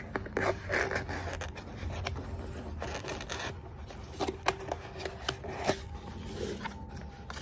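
Cardboard packaging being handled: a white cardboard insert rubbing and sliding against its box, with scattered taps and scrapes.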